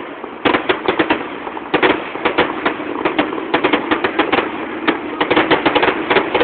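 Fireworks crackling: rapid clusters of sharp pops, several a second, with short gaps between the clusters.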